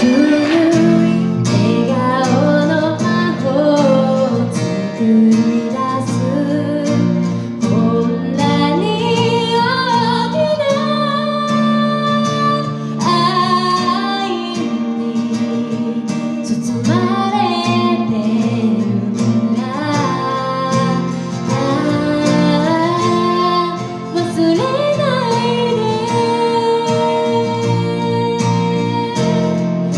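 A woman singing a pop ballad into a microphone over instrumental accompaniment with sustained chords.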